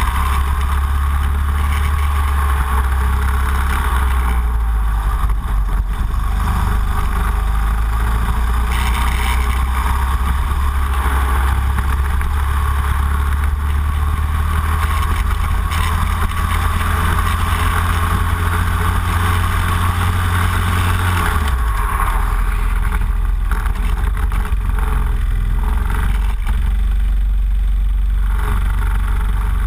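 Racing kart engine running at speed around a circuit, its steady note stepping down suddenly about two-thirds of the way through.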